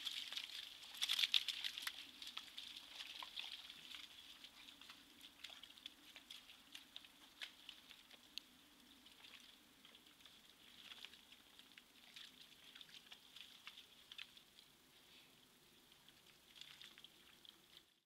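Faint, irregular patter of drops falling on wet leaf litter, heard through a trail camera's microphone over its steady faint hiss and low hum. The patter is densest about a second in, then thins to scattered ticks.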